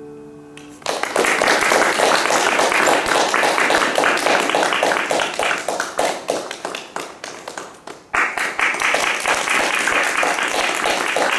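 The last chord of a piano duet on a Kawai grand piano rings and cuts off within the first second. An audience then applauds, the clapping thins out, and a fresh round of applause breaks out about eight seconds in.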